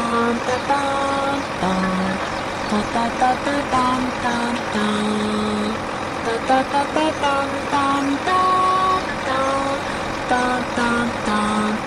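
A heavy-vehicle engine sound, steady throughout, with a simple tune of short held notes, changing pitch every half second or so, over it.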